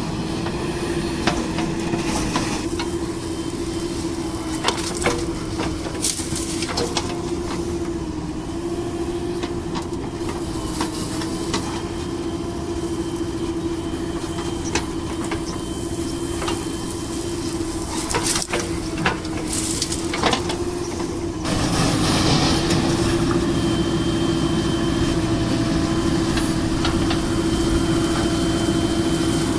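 Heavy diesel machinery running steadily with a constant droning tone, with scattered clanks and knocks. The drone gets louder about two-thirds of the way through.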